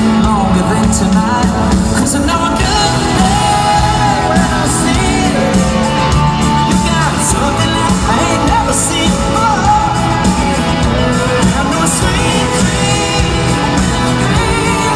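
Live country-rock band playing with a lead singer: vocals, guitars and a steady beat of drums and cymbals.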